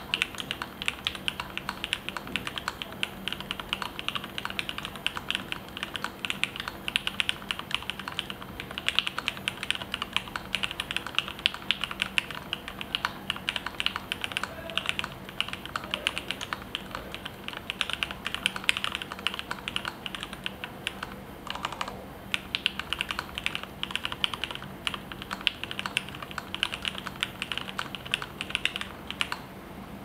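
Fast, continuous typing on an Axiom Studios Alais mechanical keyboard fitted with lubed and filmed Cherry MX Black linear switches, 67 g springs and PBT keycaps: rapid keystrokes one after another, with a brief lull about two-thirds of the way through.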